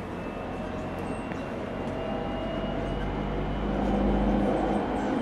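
Interior running sound of an unrefurbished JR 209-0 series electric train's motor car (MoHa 209), with its original GTO inverter equipment. Steady wheel-and-rail rumble with a faint whine slowly rising in pitch, growing louder about four seconds in.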